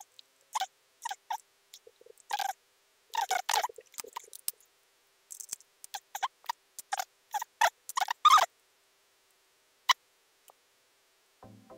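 Sony a6400's rear control wheel and buttons clicking as they are worked through the date/time and menu screens. The clicks are short, sharp and irregular, some coming in quick runs of two or three, and they stop about ten seconds in.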